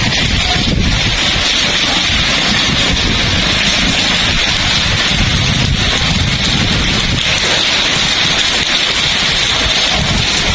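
Heavy rain pouring steadily, with strong wind gusting and buffeting the microphone in a low, fluttering rumble.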